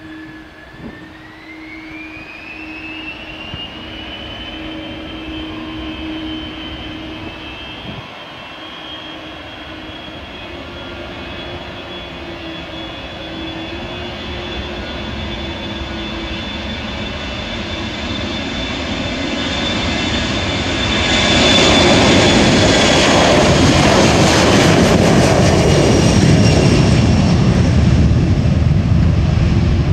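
Boeing 737-300's CFM56 turbofan engines spooling up to takeoff power, a whine rising in pitch about a second in and then holding steady. A rumble builds as the jet accelerates down the runway, swelling to a loud jet roar for the last several seconds as it passes closest.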